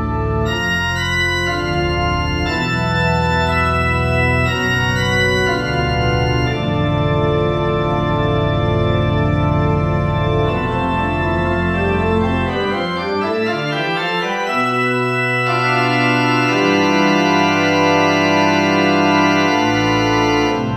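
Organ music in held chords with a moving middle voice; the deepest bass notes drop out for a few seconds past the middle, then return.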